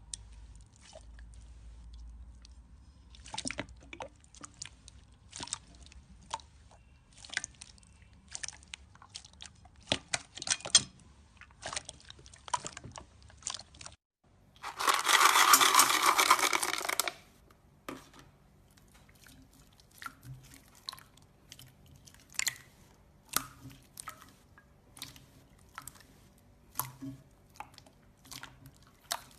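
Slime being squeezed and pressed by hand, crackling and popping in quick irregular clicks. About halfway through comes a loud rushing squelch lasting about two seconds.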